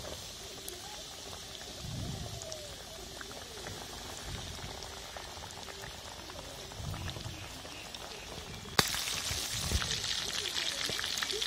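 Oats-coated chicken pieces deep-frying in groundnut oil: a steady sizzling hiss that turns suddenly much louder about nine seconds in.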